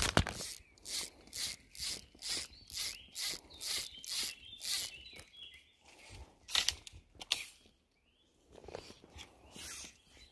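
Footsteps at a steady walking pace, about two steps a second for several seconds, then a few scattered steps.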